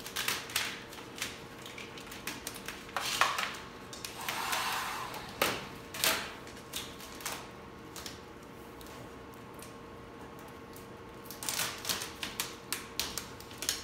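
3M satin vinyl wrap film crackling and snapping as it is pulled, lifted and re-laid over a car door, with a short rustling swish about four seconds in. A faint steady hum runs underneath.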